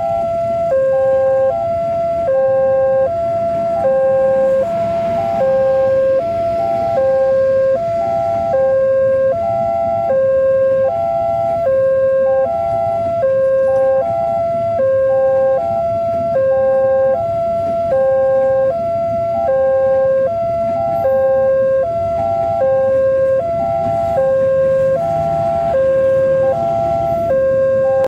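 Railway level-crossing warning alarm sounding, an electronic two-tone signal that alternates steadily between a lower and a higher tone, with the low rumble of a passenger train passing over the crossing beneath it.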